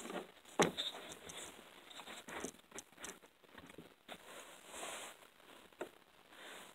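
Faint rustling of clothing against the handheld camera, with a few sharp light knocks, as the camera is moved and repositioned.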